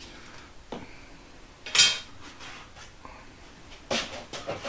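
Metal scraper blade scraping leftover hot glue off a wooden board. There is a light knock just under a second in, a short, sharp scrape about two seconds in, and a run of quick scraping strokes starting near the end.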